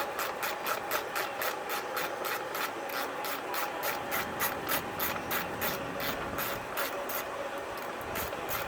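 Hand ratchet clicking in a steady rhythm, about five clicks a second, as a small 7 mm bolt is backed out during an engine teardown; the clicking stops near the end.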